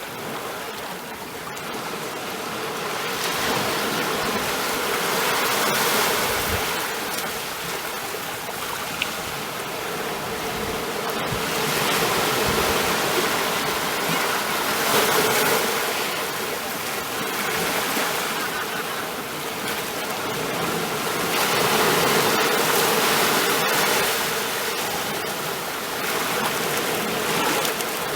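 Ocean surf, waves washing in with a steady rushing hiss that swells and fades every few seconds.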